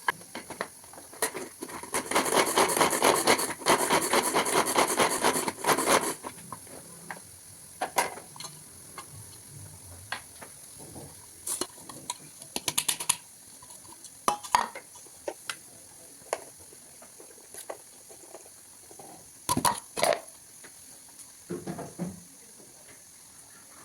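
Rapid scraping and stirring of a utensil against a cooking pan for about four seconds, followed by scattered clinks and taps of utensils on cookware, over a faint steady hiss.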